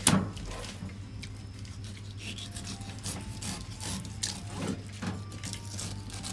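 Kitchen knife cutting and scraping along a conger eel's backbone on a wooden cutting board as the eel is opened: a sharp knock at the start, then irregular scrapes and clicks of the blade against bone and board, over a steady low hum.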